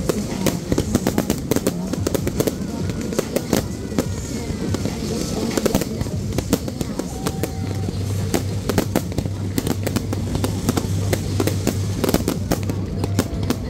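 Fireworks display: a dense, unbroken run of sharp bangs and crackles from aerial shells and fountain effects bursting over the water.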